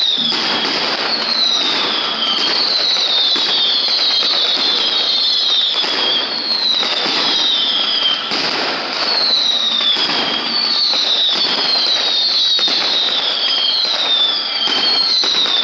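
Fireworks display: a dense, continuous crackle and sharp bangs, with whistling shells whose whistles fall in pitch, about one a second, overlapping one another.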